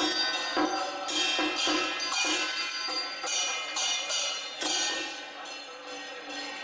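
Taiwanese temple-procession percussion music: drums, gongs and cymbals beating a steady, fast rhythm, with repeated ringing cymbal clashes.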